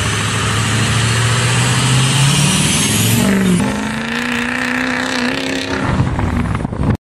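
Car engine revving: its pitch climbs over the first three seconds, then holds at a higher steady note and cuts off suddenly at the end.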